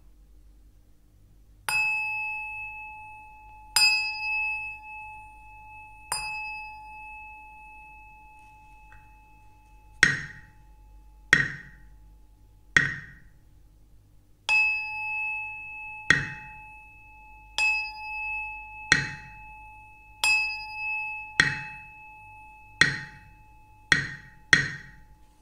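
A Buddhist bell is struck three times, each stroke left to ring on, then a wooden fish (mõ) is knocked three times. After that, bell strokes and wooden-fish knocks alternate, the knocks coming faster near the end.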